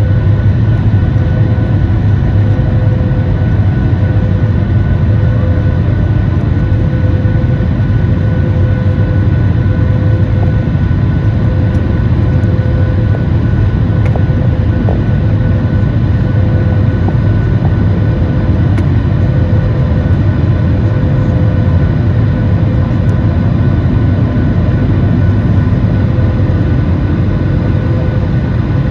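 Boeing 737 MAX 8's CFM LEAP-1B turbofan engines at takeoff power: a loud, steady rumble with a few steady tones riding above it.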